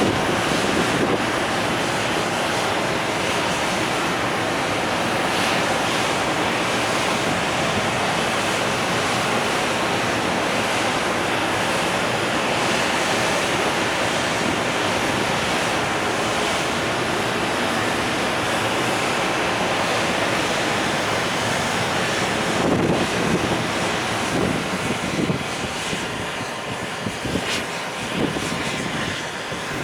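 Container wagons of a departing freight train rolling past, a steady rush of wheels on rails that turns uneven in the last several seconds.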